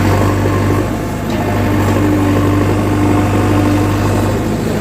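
JCB backhoe loader's diesel engine running steadily at a low, even idle-like speed, with a higher steady tone joining for a second or so near the middle.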